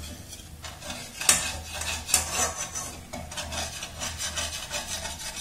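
Steel slotted spoon scraping and clinking against a metal pan as scrambled eggs are stirred and broken up, in irregular strokes with a sharp clink about a second in.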